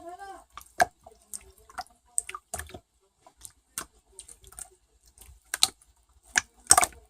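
Irregular sharp clicks and taps, one to three a second, a few louder ones near the end.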